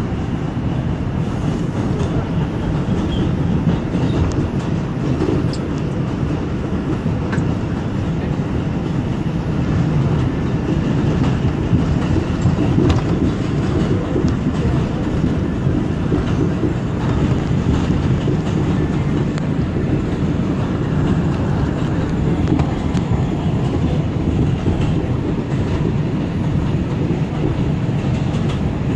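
R142 subway train running on elevated track, heard from inside the car: a steady noise of wheels on rail and the car in motion. It grows a little louder over the first ten seconds or so as the train picks up speed out of a station.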